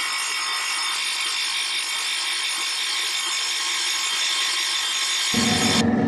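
Crankshaft grinding machine's abrasive wheel facing the flywheel flange of a ZMZ-402 crankshaft, a steady high hiss of grinding. Near the end a louder low rumble starts, and the grinding hiss cuts off suddenly.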